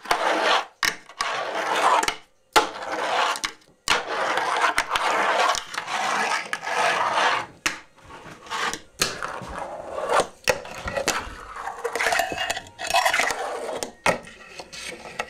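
Fingerboard wheels rolling and scraping over wooden ramps, broken by many sharp clacks as the board pops, lands and hits the ramp edges.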